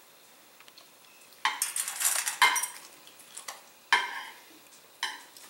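Stainless steel dog food bowl holding dry kibble clanking and clattering as a Cavalier King Charles Spaniel noses at it. There are several sharp metallic clatters with a brief ringing after each, the first coming about a second and a half in and the last near the end.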